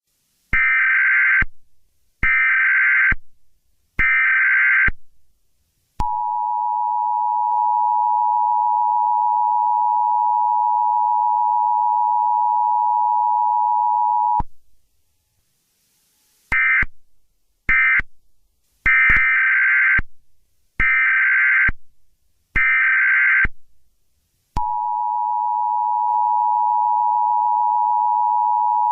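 Emergency Alert System tones. Three roughly one-second bursts of the warbling SAME digital header are followed by the steady two-tone attention signal, held for about eight seconds. After a short gap come two brief bursts and three more header bursts, and the attention signal starts again near the end.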